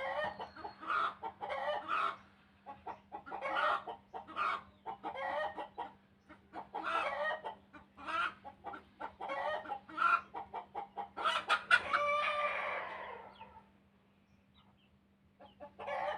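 Chickens clucking in a steady run of short calls, then one long drawn-out call with falling pitch about eleven seconds in, a rooster crowing, followed by a brief lull and a few more clucks near the end. A faint steady hum runs underneath.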